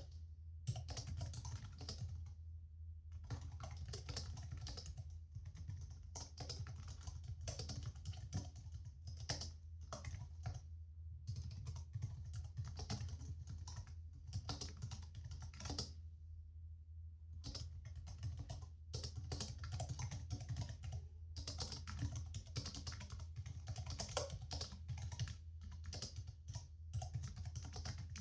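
Typing on a computer keyboard: rapid runs of key clicks broken by short pauses, over a steady low hum.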